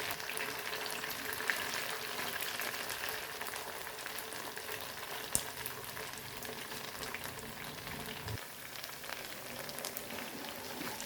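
Cornflour-coated mutton pieces shallow-frying in hot oil in a pan: a steady sizzle with fine crackles, and one sharper click about five seconds in.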